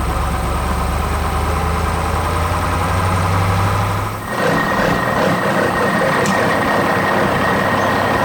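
A heavy vehicle engine idling with a steady low hum. About four seconds in it changes abruptly to a harsher machine noise with a steady high whine.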